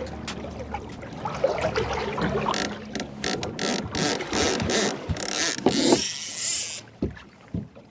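Fishing reel's ratchet clicking in a quick run of strokes, then a dense whirring for about two seconds that stops abruptly near the end.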